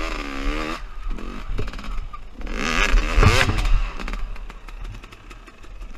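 Dirt bike engine revving in two throttle bursts as it rides up a grassy slope, the second louder, with the engine note rising and falling; between and after the bursts it runs low with irregular clicks and rattles.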